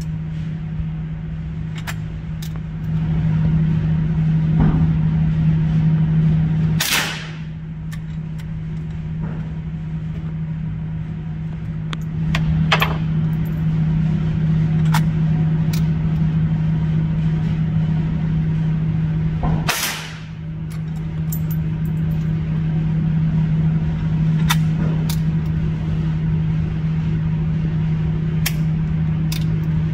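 Two sharp shots from a Quackenbush Safety Cartridge Rifle, a single-shot .22 boy's rifle, about 13 seconds apart, with quieter clicks of the action being handled and reloaded between them. A steady low hum runs underneath throughout.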